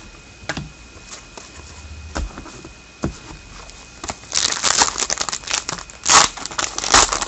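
A foil hockey card pack wrapper being handled and torn open. A few light taps and clicks come first, then from about four seconds in a dense run of crinkling and tearing.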